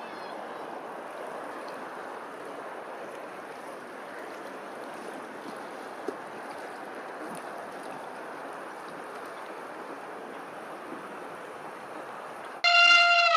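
A steady rushing ambience, like running water or wind. Near the end it gives way to a loud, high call that falls in pitch, an elephant trumpeting.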